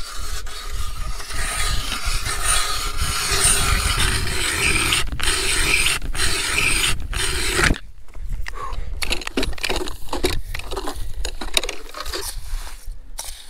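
Hand ice auger being cranked through lake ice, its blades cutting with a steady grinding scrape. The steady scrape stops abruptly about eight seconds in and gives way to uneven, broken scrapes and knocks as the auger keeps turning in the hole.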